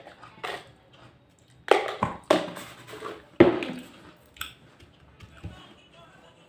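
Handling noise at a table: a few sharp knocks and clatter as a plastic container and a plate of vegetables are handled, the loudest about three and a half seconds in, followed by a few faint small sounds.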